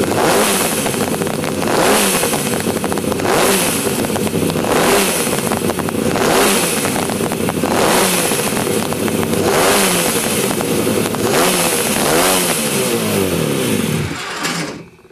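Newly built prototype eight-cylinder two-stroke engine, made from Kawasaki KH250 crankcases, running on the bench and being revved again and again by hand at the carburettor. The revs rise and fall about every one and a half seconds, and it dies away and stops near the end. It is the first run of the engine, and it revs well.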